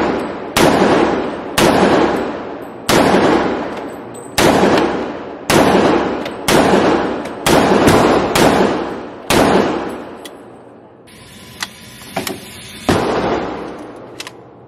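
Slow, steady semi-automatic fire from a .45 ACP AR-15 carbine fed by a 1911 magazine: about ten shots, roughly one a second, each ringing off in a long echo of the enclosed range. After a short pause with a few light clicks, one more shot comes near the end.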